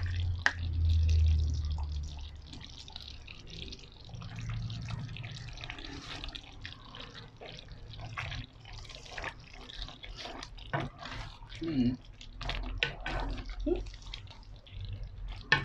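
Thick curry bubbling in a pan, its bubbles popping and plopping as it simmers, with a wooden spatula stirring it near the end.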